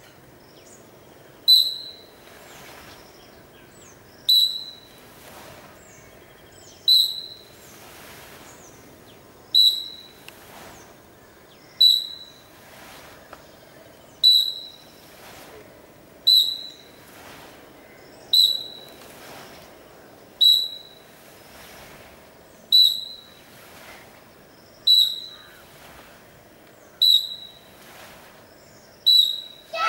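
Short, high whistle blasts, one about every two seconds, sounded as the signal for each move of a mass karate drill.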